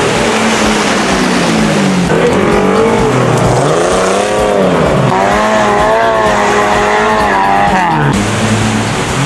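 An off-road vehicle's engine revving hard, its pitch rising and falling again and again and wavering as the load changes, over a rushing noise of spinning tyres.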